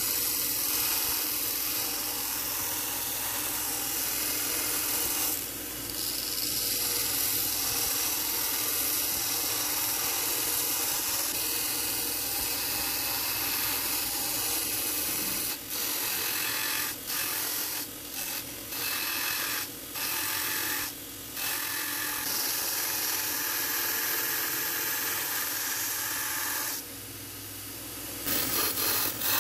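Bench belt grinder running while a steel knife blank is pressed against the abrasive belt, the steel grinding and throwing sparks as the blade profile is shaped. The grinding drops out briefly a few times, once about five seconds in and several times past the middle, where the blade is lifted off the belt.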